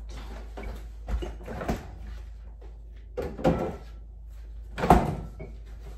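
A few knocks from a jug being handled, then a refrigerator door opening and shutting with a thump about five seconds in, the loudest sound.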